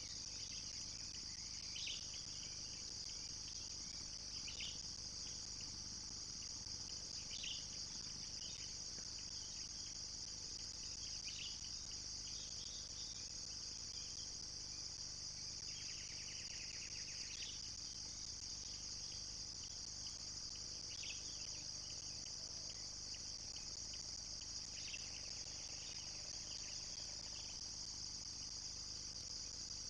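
Steady, high-pitched chorus of insects such as crickets, with short chirping calls every few seconds and a longer one about two-thirds of the way through. No eruption rumble or blast is heard.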